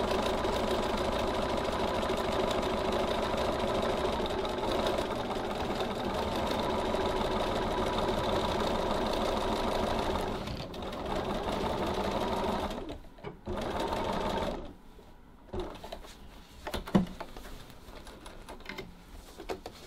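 Electric sewing machine stitching steadily at speed, with a brief slowdown about ten seconds in, two shorter runs, and a stop about three quarters of the way through. After that come a few light clicks and handling noises.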